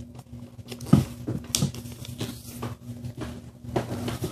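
A sheet of paper being folded and creased by hand: crinkling rustles and short taps as fingers press the fold flat against the table, the sharpest about a second in.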